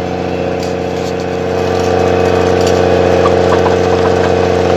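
Snowcat grooming machine's engine running steadily, its drone growing louder about two seconds in as it pulls harder.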